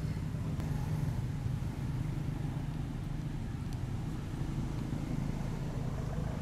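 Steady low hum of a running motor.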